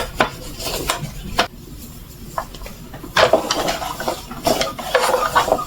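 Wiping and handling inside the plastic brush compartment of a Roomba robot vacuum: irregular rubbing and light plastic clatter with a few sharp knocks, quieter for a second or so in the middle.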